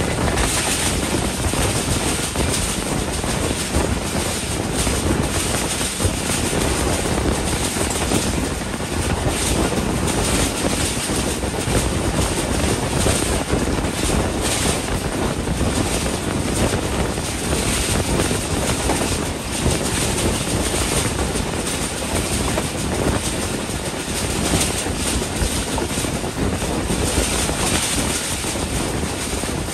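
Steady rush of wind and running noise of a passenger train moving at speed, heard from an open coach window with wind buffeting the microphone.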